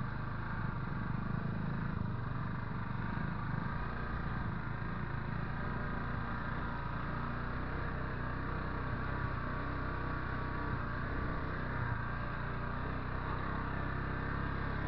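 Irbis GS 200 motorcycle engine running steadily while riding, with a constant rush of wind and road noise over it.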